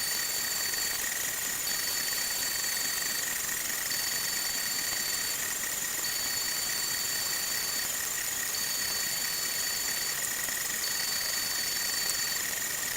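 3D printer running a print, its stepper motors giving a steady high whine over a hiss. A second, higher tone switches on and off every two seconds or so as the moves change.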